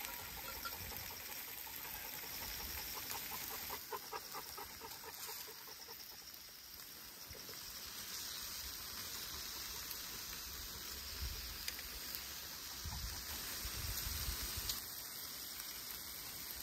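Outdoor ambience: a steady, even hiss, with a short run of faint chirps about four seconds in and a few low rumbles later on.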